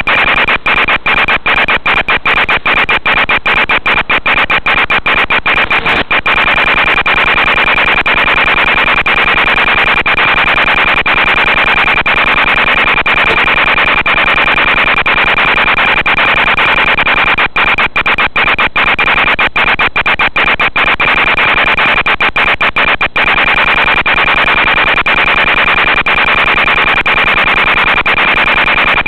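Steady static hiss with one constant high-pitched tone, broken by many brief dropouts in two clusters, one early and one near the middle. This is the audio of an analog FPV video downlink, and the dropouts are the sign of momentary breaks in the radio signal.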